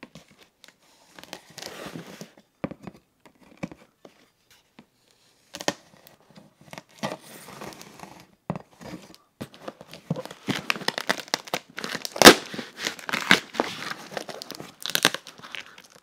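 A knife blade slicing and scraping along the packing tape on a cardboard box seam, with irregular scratching, crinkling of tape and plastic wrap, and small clicks. It grows busier and louder in the second half, with one sharp click about twelve seconds in.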